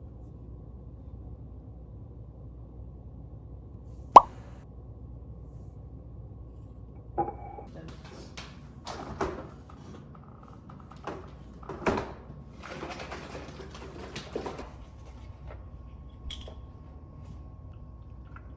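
Objects being handled: one sharp click about four seconds in, then a run of soft knocks and rustling, over a steady low hum.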